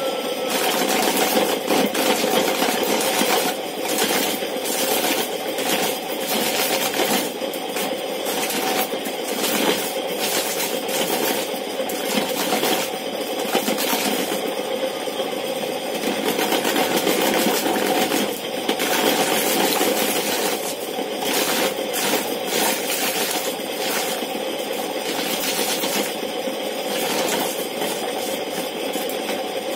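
Old motor-driven disc corn sheller running with a steady hum while ears of corn are pressed against its spinning disc. Kernels are stripped off and clatter and rattle in dense stretches that come and go as each cob is fed.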